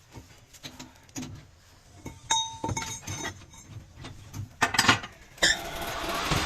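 Metal tools and parts clinking and knocking, one piece ringing briefly about two seconds in. Near the end a lathe starts up and runs steadily.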